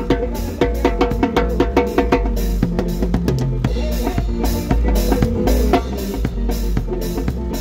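Drum kit played in a steady groove, with close snare hits and bass drum, along with a band's music whose sustained pitched tones sit under the drumming. Heard from just beneath the snare drum, so the snare and its wires are up front.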